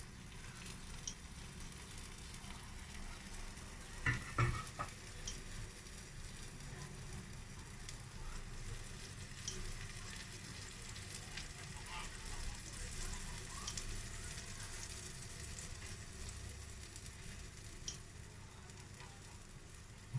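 Pancake batter frying in a buttered pan: a steady sizzle with scattered small ticks. A short louder sound comes about four seconds in.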